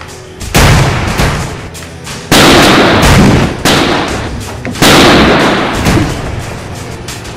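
A run of loud gunshot sound effects, four main shots about a second apart with smaller ones between, each fading out in a long tail.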